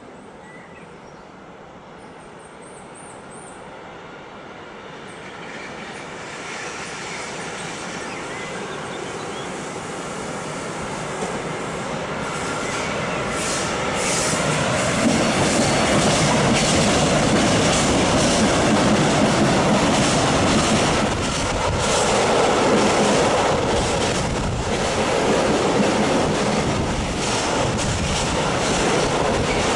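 Freight train of hopper wagons hauled by an electric locomotive approaching and passing, growing steadily louder over the first half. It then holds a loud rumble of wagon wheels on the rails, with rapid clicks from the wheels.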